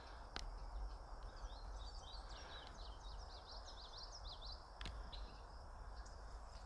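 A songbird singing a quick string of short, high chirps for about three seconds in the middle, faint under a low outdoor rumble, with a couple of soft clicks.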